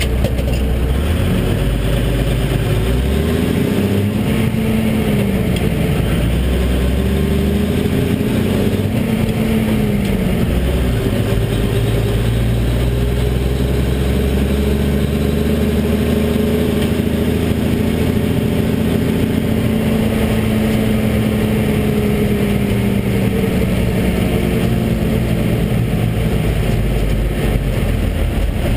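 Cummins diesel engine of a military 5-ton 6x6 dump truck, heard from inside the cab while driving. The revs climb and drop twice in the first ten seconds as it is worked up through the gears. The engine then runs steadily, and its note sinks slowly over the last several seconds as the truck slows.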